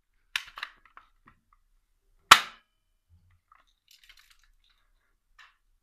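A small airsoft BB gun fires once with a sharp crack about two seconds in. A couple of light clicks come just before it, and faint ticks follow.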